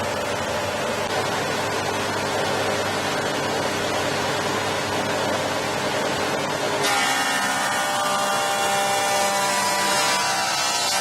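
Charnwood W583 planer thicknesser running steadily. About seven seconds in the sound turns suddenly brighter and a little louder, with a dense whine, as a board starts going through the cutters.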